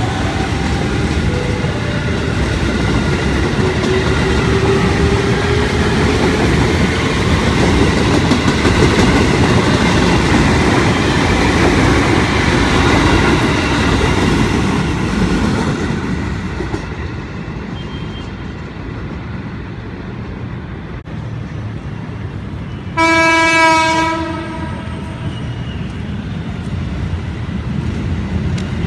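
A JR 205-series electric commuter train pulls out of the station, its wheels rumbling and clacking while the motor whine climbs in pitch. The noise dies away about halfway through, and later an approaching train gives one horn blast of about a second.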